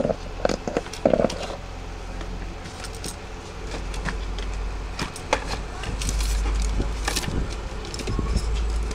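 Steady low rumble of road traffic, growing louder about six seconds in, with scattered light clicks and taps.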